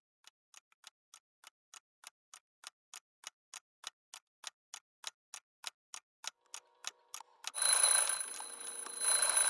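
Clock ticking about three times a second, growing steadily louder. Then, about three-quarters of the way in, an alarm goes off loudly, ringing in two bursts.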